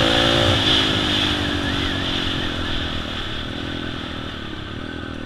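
Yamaha TTR 125 four-stroke single-cylinder dirt bike engine with an FMF exhaust, heard from the rider's helmet. It runs steadily under throttle, then the rider eases off about half a second in and the engine settles lower and quieter, its note wavering over the bumpy trail.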